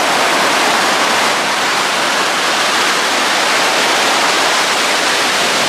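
Ocean surf breaking and foaming in the shallows: a steady, loud rushing of water.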